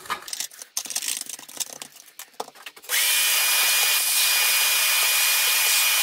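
Stiff-bristled brush scrubbing in short, uneven strokes over the plastic of a Dyson cyclone assembly. About three seconds in, a vacuum cleaner switches on suddenly and runs steadily: a loud airflow hiss with a constant high whine.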